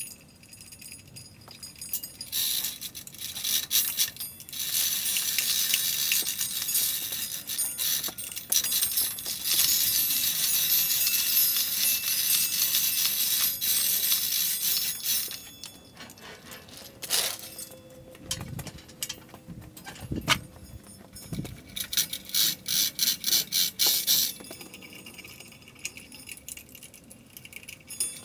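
Steel being face-milled on a horizontal boring mill: a hissy, jangling metal-cutting noise with rattling chips, running in long stretches that start and stop.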